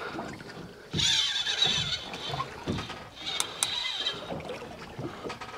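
Fishing reel's drag buzzing in two bursts as a hooked tope pulls line off it, with a few low knocks.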